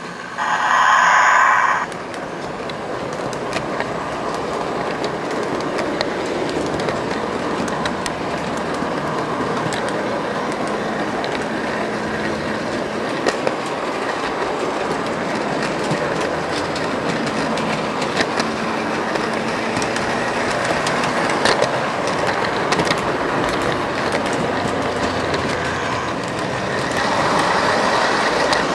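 O-gauge model train running along three-rail track, heard from a camera car riding aboard: a steady rumble of motor and wheels with small clicks over the rail joints. A brief, louder pitched tone sounds about a second in.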